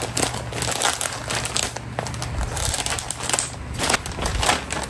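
Crinkling and rustling of a parcel's packaging being torn open and crumpled by hand, in short irregular crackles.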